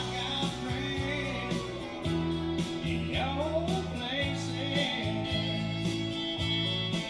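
Recorded music with a steady beat and guitar, with a sung or sliding melody line over it.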